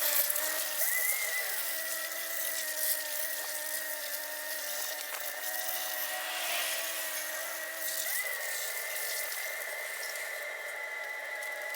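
Pressure washer running steadily, its motor and pump whining with a hiss of water spray, washing mud and dirt off a rotten log; the whine shifts slightly in pitch about a second in and again near the end as the load changes.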